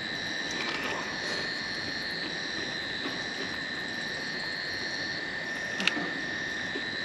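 Steady high-pitched night chorus of frogs and insects, with one sharp click about six seconds in.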